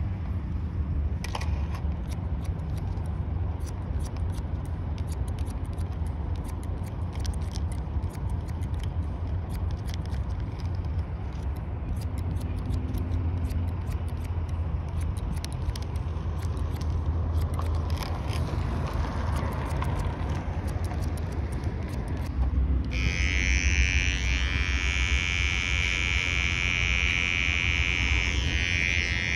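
Barber's scissors snipping rapidly over a comb through the hair, over a steady low rumble. About three quarters of the way through, an electric hair trimmer switches on and buzzes steadily.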